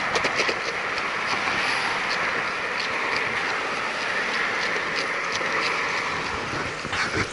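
Skateboard wheels rolling steadily over asphalt at speed: a continuous rushing hiss with scattered small clicks from the rough path surface.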